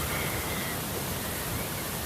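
Steady rushing noise of natural water, such as a waterfall, surf or rain, even and unbroken. A faint thin high tone sounds for about half a second near the start.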